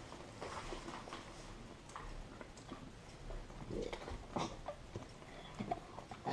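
Faint chewing and small mouth clicks as chili pepper is eaten, with a few short, slightly louder sounds around four seconds in.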